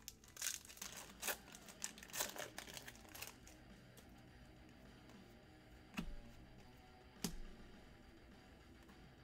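A plastic trading-card pack wrapper being torn open and crinkled for about three seconds. Two sharp clicks follow later on.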